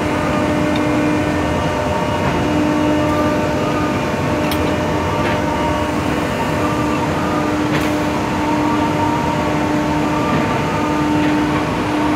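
Steady industrial hum of a steel plant with several held machine tones, one of them fading in and out, as a shunting goods train of open freight wagons rolls slowly past, with a few faint clicks.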